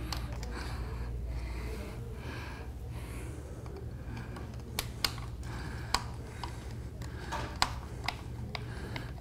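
Phillips screwdriver backing out the screws of a power chair's plastic fender: light, scattered clicks of the tool and screws, a few sharper ones in the second half, over a steady low hum.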